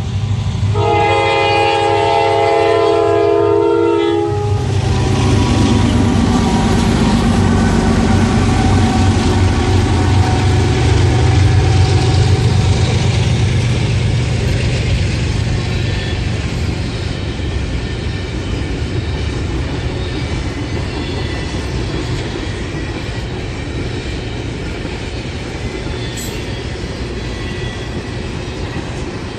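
Train horn sounding one chord of several notes for about three seconds. A train then rumbles past: a low steady locomotive drone with the clatter of cars, loudest about ten seconds in and slowly fading.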